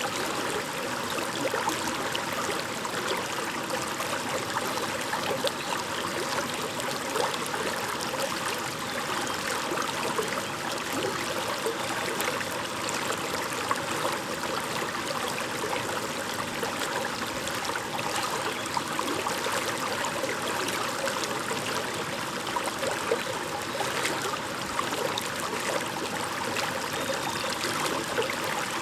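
A shallow stream babbling and trickling steadily over stones.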